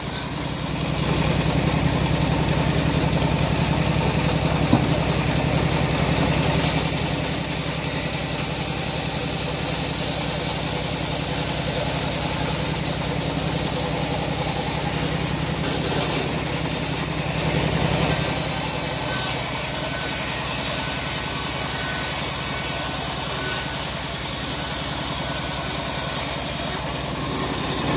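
Homemade vertical bandsaw mill running steadily with a low hum, its blade ripping through a length of teak heartwood as the board is fed past it.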